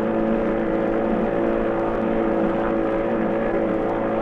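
Small open boat's motor running steadily under way, one constant engine note that does not change in speed.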